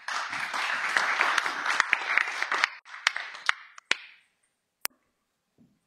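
Audience applauding, thinning to a few scattered claps and dying out about four seconds in, followed by a single sharp click.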